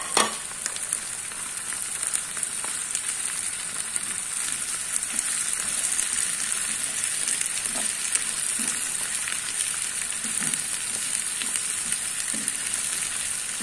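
Cut green beans and onions sizzling in hot oil in a frying pan, a steady frying hiss. A sharp clatter right at the start as the beans drop in, then occasional light scrapes of a wooden spatula stirring.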